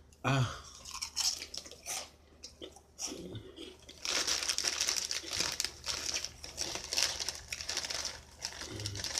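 Close-up crunching of Flaming Hot Funyuns onion-ring snacks being bitten and chewed, with the plastic snack bag crinkling as it is handled. The crunching and crinkling grow dense from about four seconds in.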